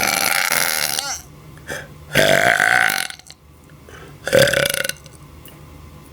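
Three loud, deliberate burps from a person: a long one that ends about a second in, a second about two seconds in, and a short third about four and a half seconds in.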